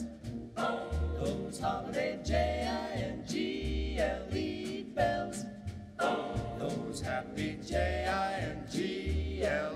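Background music: a song sung by a group of voices, choir-like, over a bass line that plays about one note a second.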